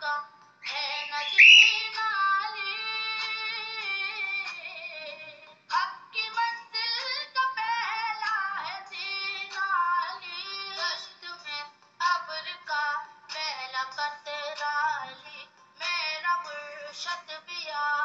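Background music: a song with a high female singing voice, held notes and short phrases, and little bass.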